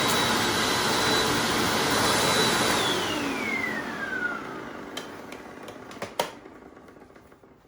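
Hoover Anniversary upright vacuum running with a steady high whine, then switched off about three seconds in, its motor whine falling as it spins down. A few clicks and a sharp knock follow as it goes quiet.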